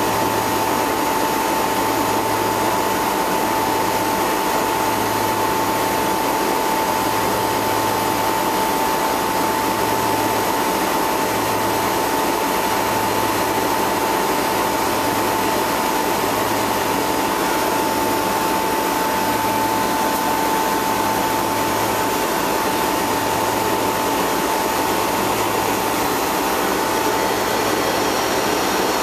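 Milk-tank refrigeration plant running with its newly fitted Bristol two-speed compressor: a steady, noisy machine hum with a constant high whine and a low throb that swells every second or two.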